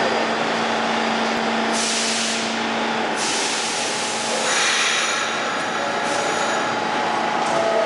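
R-46 subway car standing at the platform with a steady electrical hum, which stops about three seconds in. Its pneumatics give loud bursts of compressed air hissing, one about two seconds in and a longer one from about three to six and a half seconds, typical of the air brakes releasing.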